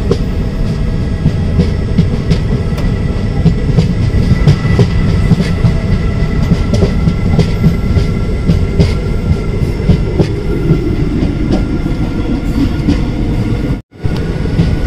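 Tirupati–Chamarajanagar Express running at speed, heard from on board: a loud steady rumble of the wheels on the rails with many small irregular knocks and a faint steady high tone. The sound cuts out for a moment near the end.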